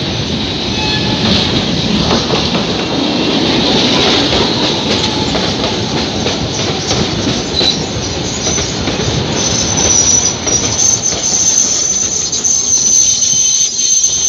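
Alexandria electric tram running past at close range, its steel wheels rumbling and clicking over the rails. From about two thirds of the way through, a high steady squeal rides over the rumble.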